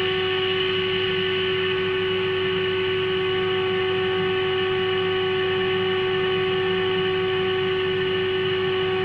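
Steady test tone from the loudspeaker of a Fleetwood 1061 (Philips 165) valve radio: the signal generator's modulation tone demodulated by the set while the generator is tuned around 455 kHz to peak its intermediate-frequency alignment. It holds one pitch at an even level, with a low hum beneath.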